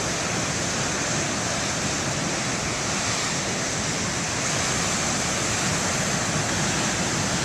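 Big ocean waves breaking, a steady wash of surf noise with no single crash standing out.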